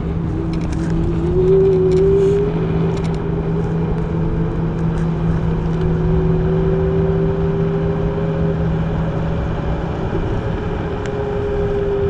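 Gyroor Urban Max C1 electric scooter's motor whining while riding, its pitch rising over the first two seconds or so as it picks up speed and then holding steady, with a lower steady hum underneath and a rush of road and wind noise.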